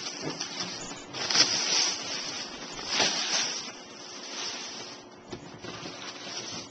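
Packaging material rustling and sliding as a boxed TV is unpacked, in a few swishes: the strongest about a second and a half in and again about three seconds in, fainter after about five seconds.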